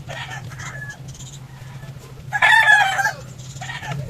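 A rooster crowing once, loud, about two and a half seconds in, with shorter, fainter calls near the start and near the end.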